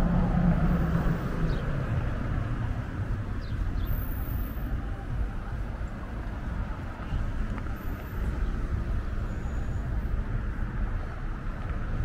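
Road traffic on a city street: a steady rumble of passing cars' engines and tyres. One vehicle's engine hum is loudest in the first second or so, then fades.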